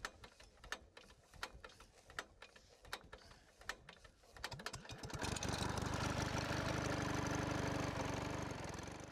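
Toy plane's propeller-engine sound effect: a steady droning engine hum with a fast flutter that starts about five seconds in and fades away near the end. Before it, a few light plastic clicks.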